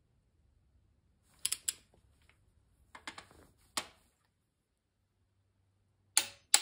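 Torque wrench and socket on the ARP connecting-rod bolts of a Mopar 440 V8 as they are pulled up to 50 ft-lbs: sharp metallic clicks in small groups, with a close pair near the end the loudest.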